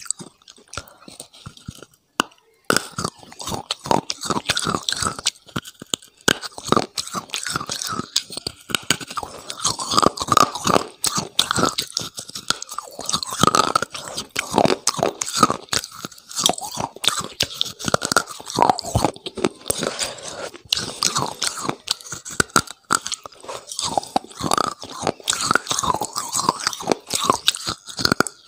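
Close-miked biting, crunching and chewing of brittle food, a dense run of irregular crackly crunches, quieter for about the first two seconds.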